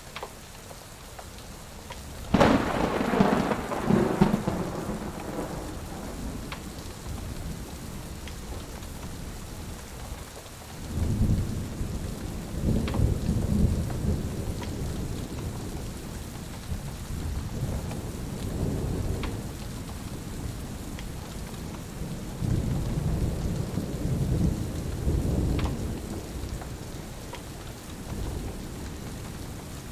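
Thunderstorm: steady rain with a sharp thunderclap about two and a half seconds in, then long low rolling thunder about eleven seconds in and again about twenty-two seconds in. A few faint snaps from a crackling wood fire sound in between.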